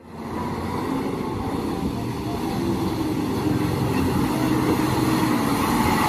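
Large multi-axle truck's engine running steadily as it drives through deep mud.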